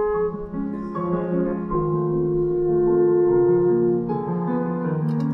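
French horn playing a slow melody of held notes over a chordal accompaniment.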